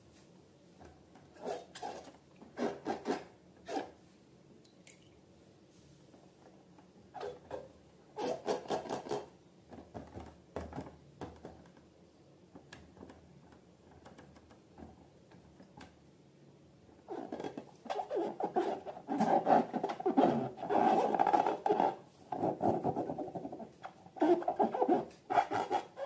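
Slime and rubber balloons being handled by hand: intermittent rubbing, squishing and scratchy sounds in short bursts, busier and louder for the last third.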